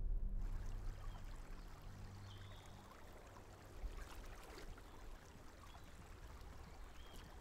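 A low sustained music chord fades out over the first few seconds, leaving lake water lapping with light splashes from a paddle on a small boat.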